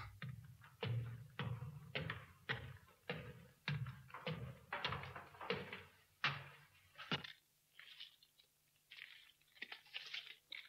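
Footsteps: about a dozen even steps, roughly two a second, stopping about seven seconds in, then fainter light rustling and tapping.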